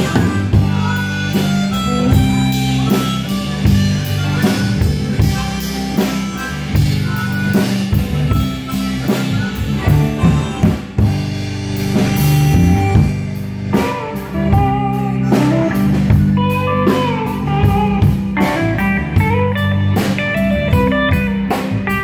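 Live blues band playing: harmonica lead over electric guitar and a drum kit keeping a steady beat.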